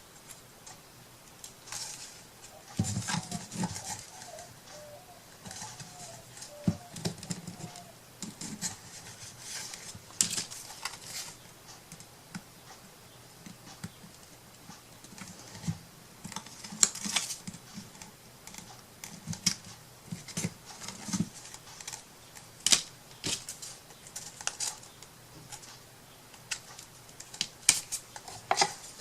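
Irregular taps, clicks and short rustles of paper and small wooden craft pieces being handled and pressed into place on a work table.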